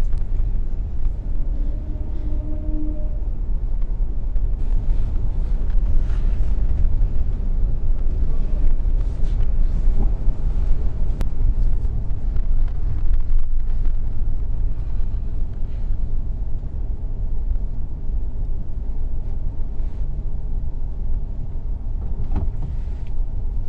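Car driving through city traffic: a steady low rumble of engine and road noise.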